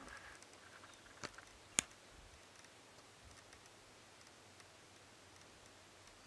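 Quiet outdoor ambience: a faint steady hiss, broken about a second in by two sharp clicks half a second apart, the second louder.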